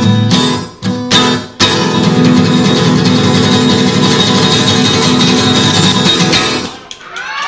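Acoustic guitar strummed hard as the song's closing flourish: a few sharp chord hits in the first second and a half, then a fast, sustained strum that dies away about seven seconds in.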